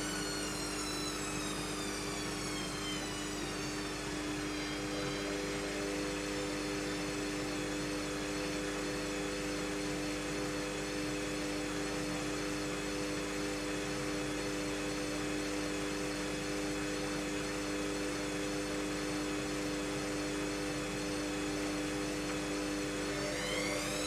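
Bush WMNSN612W washing machine spinning its drum at speed. The motor whine falls in pitch over the first few seconds and then holds steady under a constant hum. Near the end it starts climbing again as the drum speeds up.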